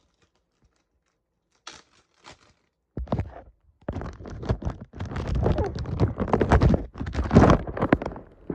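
Handling noise: a few faint taps, then from about three seconds in a dense, irregular run of rubbing, rustling and knocks, as a phone is moved about and cloth such as a towel is handled against it.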